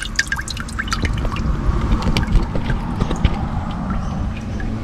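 Water dripping and splashing from a wet hand into a plastic bucket of water, a quick run of drips in the first second or so, then sparser ones.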